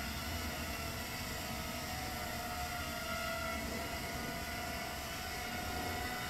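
Realacc RX130 micro quadcopter hovering, its small brushless 1306 motors and 3-inch tri-blade props giving a steady whine whose pitch drifts slightly up and down with the throttle, over a steady hiss.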